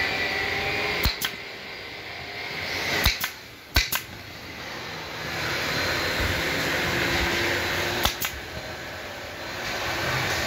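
A pneumatic staple gun firing staples through upholstery fabric into a plywood frame: sharp snapping shots, mostly in quick pairs, about eight in all, over a steady background noise.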